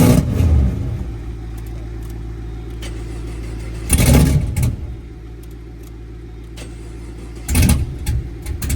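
A steady low engine idle, with four short, loud bursts of noise, one near the start, one about four seconds in and two near the end.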